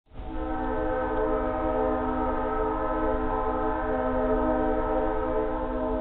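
Distant train horn sounding one long held chord of several tones, over a low rumble underneath. It comes in right at the start and holds steady.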